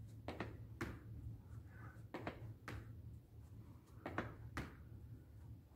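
Soft footfalls of sneakers on the floor during repeated lunge jumps, coming in pairs about half a second apart roughly every two seconds as each step back is followed by a knee-drive hop and landing. A faint steady low hum runs underneath.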